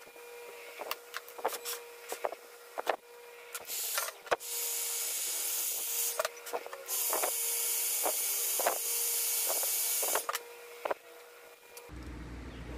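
Sharp metal clicks and taps of pliers working on small hardware. Midway a cordless drill runs twice, for about two seconds and then about three seconds, with a short pause between.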